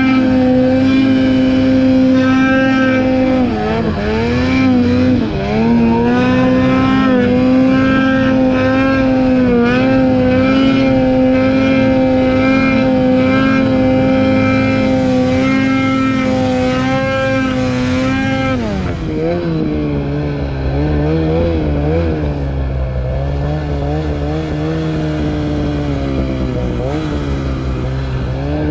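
Two-stroke mountain snowmobile engine running at high, fairly steady revs under load, dipping briefly a couple of times a few seconds in. At about 19 seconds the revs drop to a lower, wavering level.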